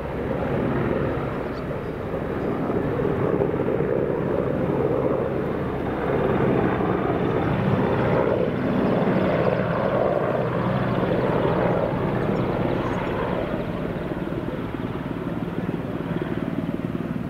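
AgustaWestland AW101 Merlin helicopters flying in: the beat of the rotors and the whine of their three turboshaft engines, a steady, loud noise that swells and eases a little over several seconds.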